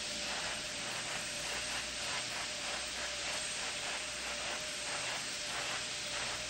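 Steady hiss of open-line background noise, with a faint steady tone underneath.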